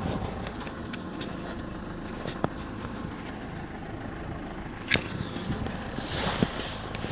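Boat engine running steadily at low revs, with two sharp knocks a couple of seconds apart and a short hiss near the end.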